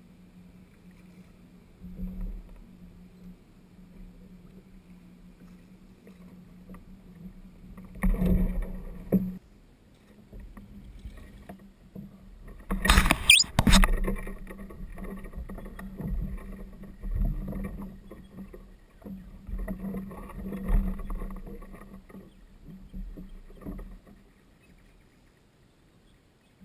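Kayak handling sounds: irregular knocks and bumps with water splashing, loudest in a burst about halfway through, over a low steady hum.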